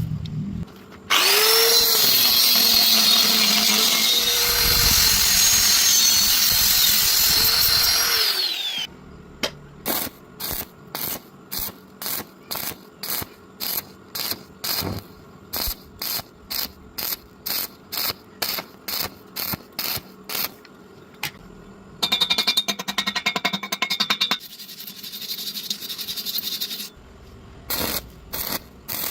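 Power tool running at high speed for about eight seconds, its pitch sagging briefly as it bites. It is followed by a long series of short, regular knocks, about two a second, and a couple of seconds of dense crackling.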